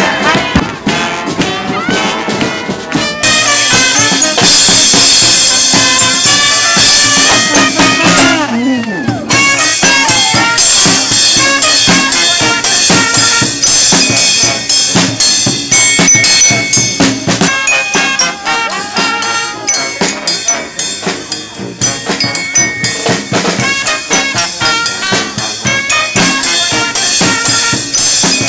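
Brass band playing with drums: horns carrying sustained notes over a steady drum beat, with a short break about nine seconds in before the music carries on.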